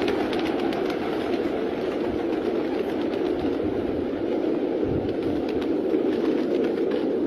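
A large number of pigeons cooing together, making a dense, steady murmur with scattered faint clicks.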